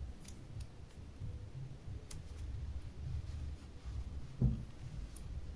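Handling noise from working the freshly soldered wires and tools: a low rumble with a few faint clicks, and one short thump about four and a half seconds in.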